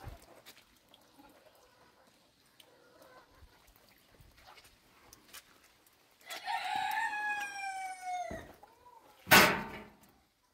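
A rooster crows once, a long call of about two seconds that starts about six seconds in and falls slightly in pitch at the end. About a second later comes a short, loud, sharp sound.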